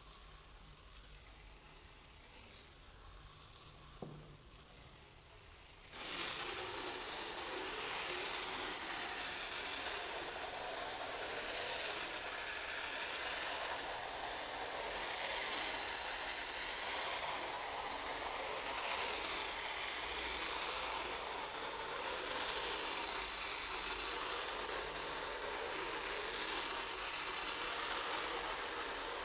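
Rice grains streaming from a swinging cone-shaped pendulum: at first a faint hiss as they fall onto a bed of rice, with a single click about four seconds in. About six seconds in it turns suddenly loud as the grains pour onto a metal sheet, a dense, steady hiss of grains striking metal that swells and eases in a slow, regular rhythm.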